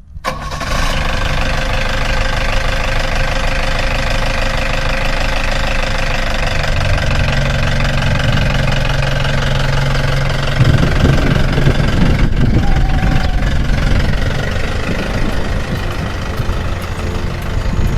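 A vehicle engine running steadily and loud, with a lower tone joining in about halfway through, cutting off suddenly near the end.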